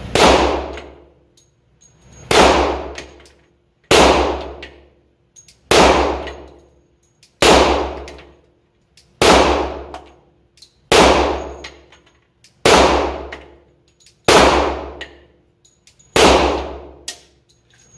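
Ten shots from a Glock 40 10mm long-slide pistol, fired slowly at about one every second and a half to two seconds. Each shot is followed by a short echoing decay in the range booth.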